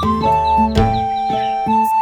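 Background music: a light instrumental tune with held melody notes over a bass line that changes note every half second or so.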